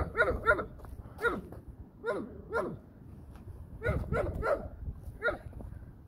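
A dog barking in short yelps that fall in pitch, about ten of them in quick pairs and threes, over a low rumble.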